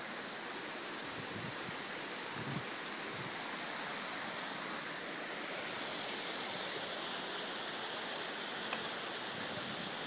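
A cascading mountain creek rushing steadily over its rocks.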